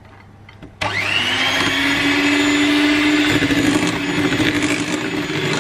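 Electric hand mixer switched on about a second in, its motor whining up to speed and then running steadily as the beaters mix a thick creamed-butter cookie dough.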